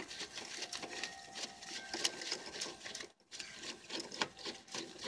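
Hand ratchet clicking rapidly as a socket on a long extension backs out a loosened engine mount bolt, with a brief pause about three seconds in.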